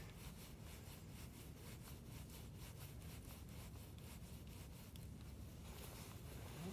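Faint, rapid, even ticking of a spinning reel's handle being cranked, over a low steady hum.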